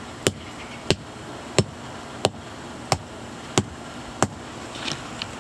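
Wooden stakes being pounded further in: seven sharp, evenly spaced blows, about one and a half a second, stopping a little past the four-second mark.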